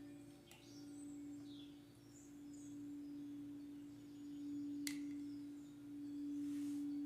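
Singing bowl holding one steady low tone that swells and eases in slow waves, with faint bird chirps above it and a single click about five seconds in.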